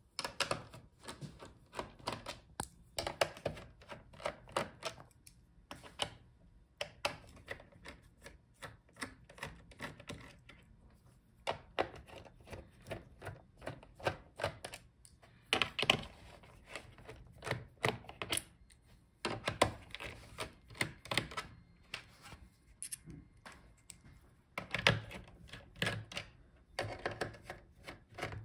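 Precision screwdriver backing out the bottom-cover screws of an MSI GF75 gaming laptop: quick irregular clicks and ticks of the bit turning in the screws against the plastic case, in bursts with short pauses between screws.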